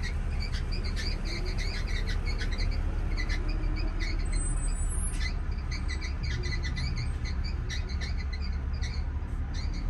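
Small birds chirping in quick, repeated short notes over a low, steady rumble.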